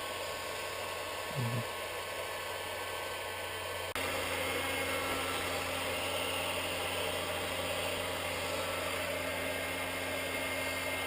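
Heat gun blowing hot air steadily, warming the contact adhesive of a drysuit foot seal so the old foot can be peeled off. It gets a little louder about four seconds in.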